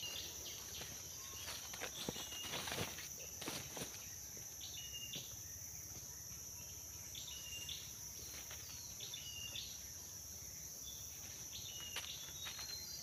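Forest ambience: a steady, high-pitched drone of insects, with scattered short chirps and faint rustling footsteps in dry leaf litter, the footsteps mostly in the first few seconds.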